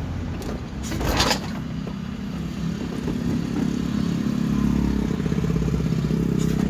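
Toyota LiteAce van's engine running on the road, a steady hum that grows louder from about halfway through, with a brief rushing noise about a second in.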